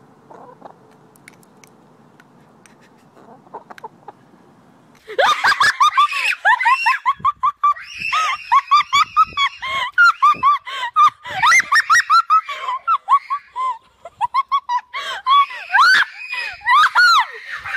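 A young child shrieking and laughing in quick, high-pitched, repeated cries, several a second, starting about five seconds in after a quiet stretch.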